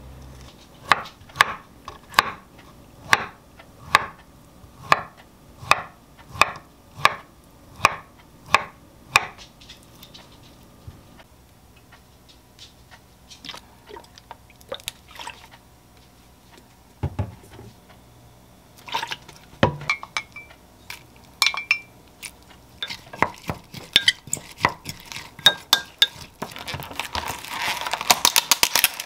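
Kitchen knife chopping on a wooden cutting board at a steady pace, about two strokes a second, for around nine seconds. Then small drips and pours of liquid seasoning and a spoon clinking against a glass mug, with scattered clicks, and near the end the crackle of a plastic food pack being handled.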